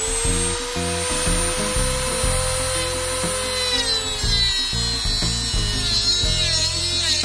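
Dremel rotary tool running at high speed, cutting through a metal curtain rod; its whine dips in pitch about halfway through. Background music plays over it.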